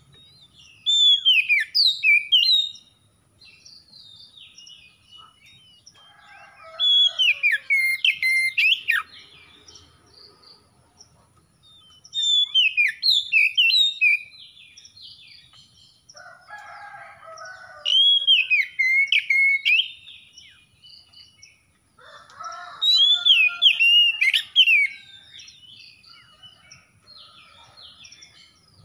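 Oriental magpie-robin (kacer) singing: five loud whistled song phrases, each about two seconds long, coming every five to six seconds. Each phrase is led by softer, lower chattering notes.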